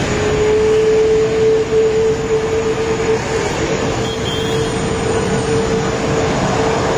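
Steady aircraft noise: an even rumble with a steady mid-pitched whine held over it.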